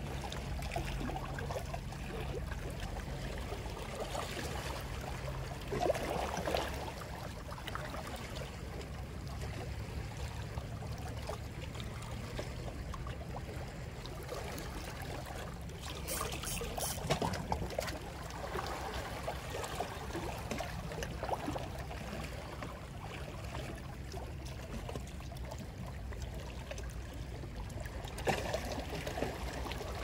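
Seawater lapping and trickling at the shoreline in a steady wash, with a few short clicks about two-thirds of the way through and again near the end.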